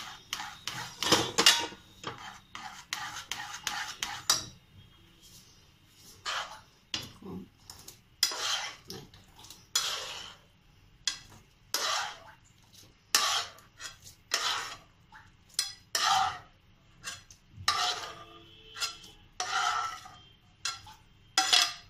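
A spoon stirring and scraping in a saucepan as blanched vegetables are mixed into white sauce. The strokes come thickly for the first few seconds, then settle to about one a second.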